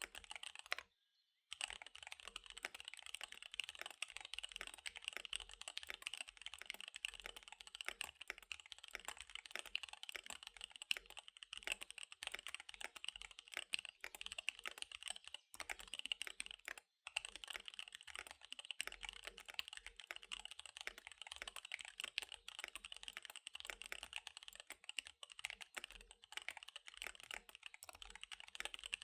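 Fast, continuous typing on a KBD75 V3 mechanical keyboard with SP-Star Dark Magic Girl tactile switches and DSA keycaps: a dense stream of keystroke clacks, broken by a short pause about a second in and a brief one about seventeen seconds in.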